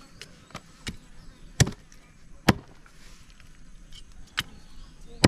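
Knife chopping pork head meat: a string of irregular sharp knocks, the two loudest just under a second apart near the middle.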